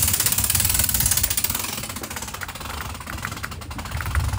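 Sailboat's engine running at idle, a steady low rumble, with light rapid clicking starting about halfway through.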